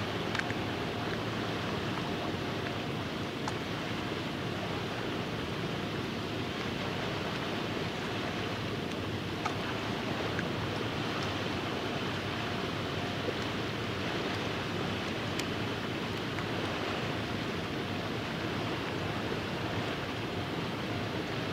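Steady seaside ambience: wind and lapping water make an even wash of noise, with a faint steady hum underneath.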